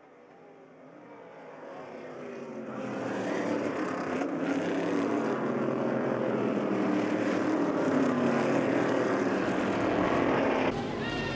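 A pack of Stock Car Brasil V8 race cars at racing speed, growing louder over the first few seconds as they approach, their engine notes rising and falling through the gears. The sound changes abruptly near the end.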